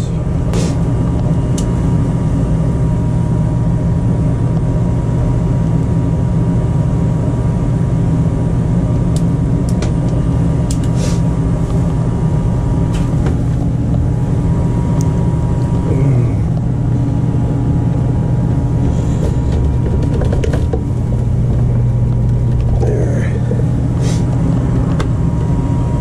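Goodman gas furnace running, a steady low hum with a steady higher tone over it. Scattered light clicks and knocks come from hands working the plastic condensate pump and its drain tubing.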